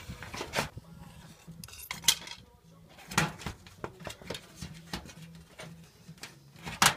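Hands working a plastic security-camera mount and its cable loose from a soffit: light plastic clicks and clatters, several sharp ones, the loudest near the end.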